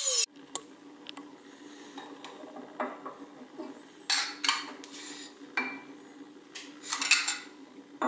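Metal clinks and scrapes as a portafilter is fitted into and twisted in a machined espresso group head, a handful of separate knocks over a few seconds. A faint steady low hum lies under it.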